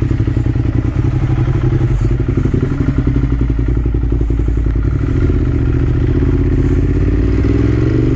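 Ducati Monster 1200 S's L-twin engine running at low revs with an uneven, lumpy beat as the bike rolls off slowly. The pitch rises near the end as it picks up speed.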